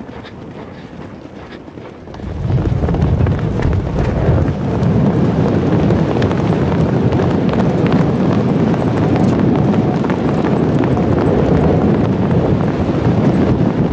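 Hoofbeats of several Mongolian horses galloping, mixed with wind rushing over the microphone. The sound jumps much louder about two seconds in and stays steady after that.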